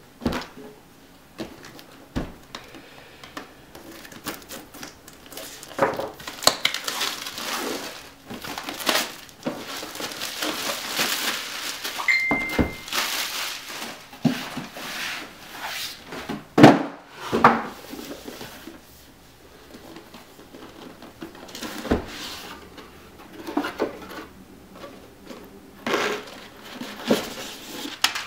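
Cardboard packaging of a power supply being handled and opened: rustling and scraping with a run of knocks and thumps, the loudest about two-thirds of the way through, and a short squeak just before halfway.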